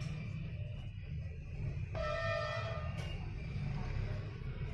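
Background music: a steady low pulse, with one long held note starting about two seconds in and lasting about a second.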